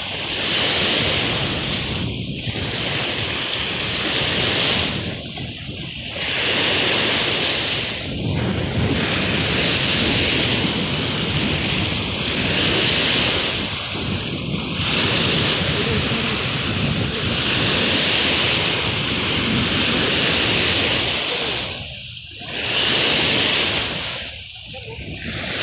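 Wind-driven lake waves washing against the shore, with wind buffeting the microphone. The noise surges and eases every few seconds, with short lulls between gusts.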